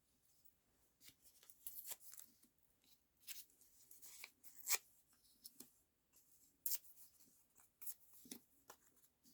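Faint, scattered rustles and light taps of paper and fabric scraps being picked up, moved and laid down by hand.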